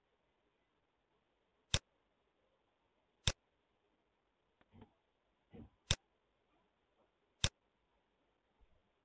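Computer mouse button clicking, four sharp single clicks spaced a second or two apart over a very quiet background.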